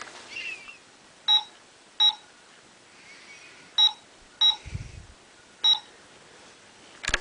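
Pink toy mobile phone's keypad beeping as numbers are dialed: five short electronic beeps at uneven intervals, with a soft bump about two-thirds of the way through and a click near the end.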